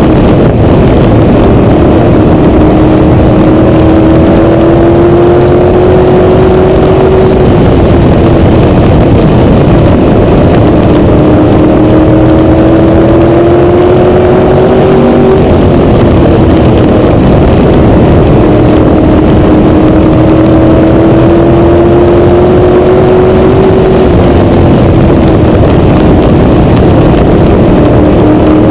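PASS Modified race car's engine at racing speed, heard loud from a camera mounted on the car: a steady engine drone whose pitch climbs slowly and then falls back sharply, about every eight seconds as the car laps the short oval.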